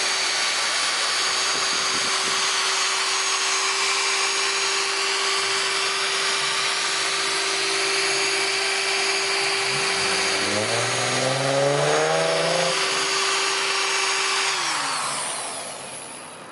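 Electric rotary polisher running steadily on the paint with a constant motor whine, then spinning down near the end as it is switched off.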